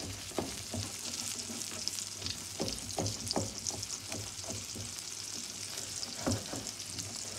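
Egg omelette sizzling in a frying pan while a spatula scrapes and pushes it around, giving irregular scrapes and knocks against the pan over the steady hiss of frying. The egg is sticking to the bottom of the pan and starting to catch.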